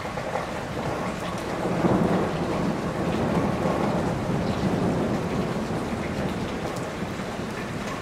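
Heavy rain falling steadily on a roof, a dense even hiss with a low rumble that swells about two seconds in.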